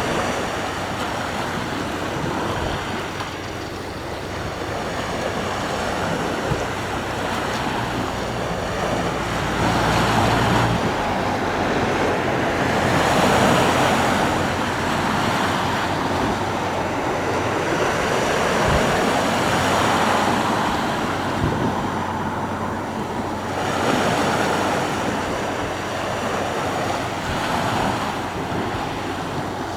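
Sea surf: waves breaking and washing ashore, swelling and fading every few seconds.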